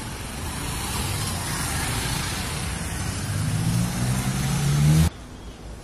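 Street traffic passing close: a motor vehicle's engine grows louder and rises slightly in pitch as it goes by, then cuts off abruptly about five seconds in.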